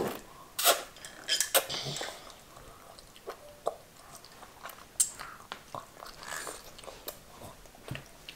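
Beef noodle soup being eaten: irregular chewing and mouth noises, with a few louder bursts in the first two seconds and scattered small clicks after.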